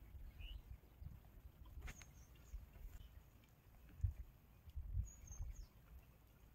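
Faint riverside ambience: a low uneven rumble with a few short, high bird chirps, one about two seconds in and a sliding call about five seconds in.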